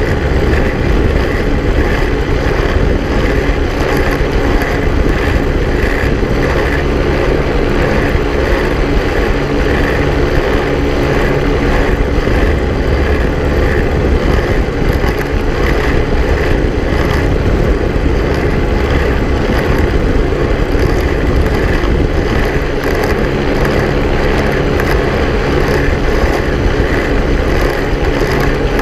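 Quicksilver ultralight's engine and pusher propeller running at a steady cruise setting in low flight.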